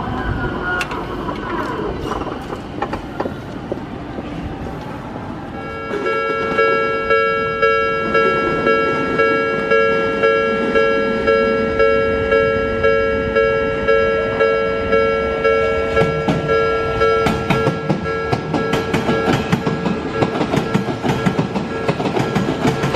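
A Japanese level-crossing warning bell starts about six seconds in and rings steadily, about 1.7 dings a second. From about sixteen seconds an Odakyu 3000 series train runs past, its wheels clacking over the rail joints.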